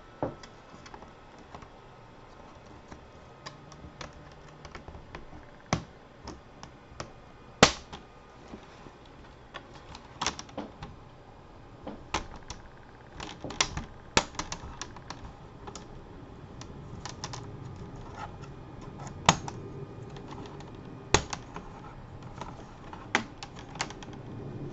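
Plastic laptop screen bezel being pried off with a plastic pry tool: irregular sharp clicks and snaps as its clips pop loose one by one.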